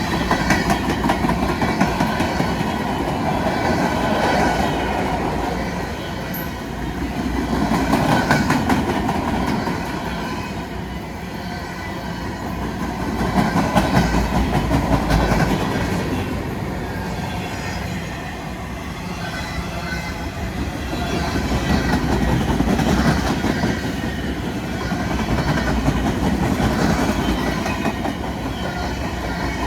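Empty freight cars of a BNSF military train rolling past, steel wheels clacking over rail joints amid a continuous rumble, the loudness swelling and easing every several seconds.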